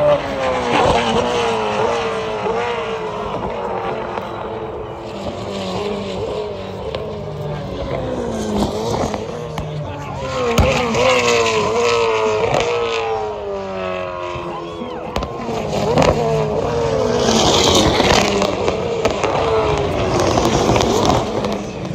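Supercars race cars with 5.0-litre V8 engines passing one after another, engine pitch climbing and dropping again and again through gear changes, with several cars overlapping.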